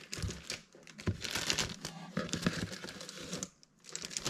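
Thin plastic wrapping crinkling and rustling as plastic-wrapped boxes are lifted out of a cardboard shipping box, with small knocks of cardboard; the rustling stops briefly about three and a half seconds in.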